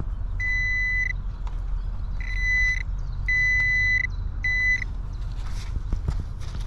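Metal detector giving four steady high beeps of differing length as it is held over a target in a freshly dug hole; the target is a beer bottle cap. A low wind rumble runs underneath.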